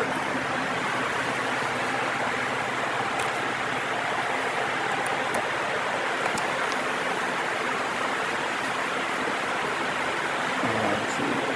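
Electric floor fan running close by, a steady rushing hiss of moving air.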